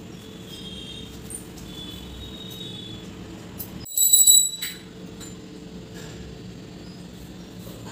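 A brief, high metallic jingle lasting under a second, about four seconds in. It sounds over a steady low hum and faint high chirping.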